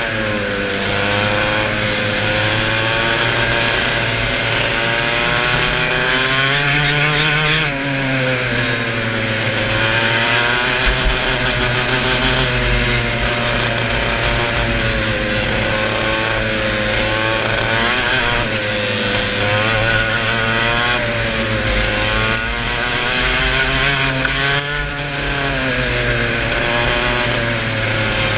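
Go-kart engine running hard at racing speed, its pitch rising and falling over and over as the throttle is opened and closed through the corners, with a steady rush of wind over the microphone.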